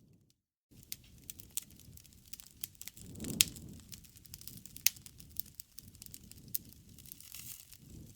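Campfire of burning wood crackling, with irregular sharp pops and snaps over a low rumble of the flames, two snaps standing out louder around the middle. The sound drops out completely for about half a second just after the start.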